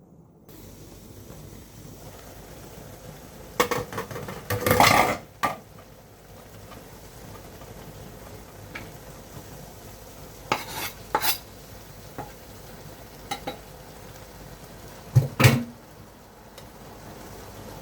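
Kitchen utensils clinking and scraping against pots and dishes in scattered bursts, the loudest about three-quarters of the way through, over a steady low hiss.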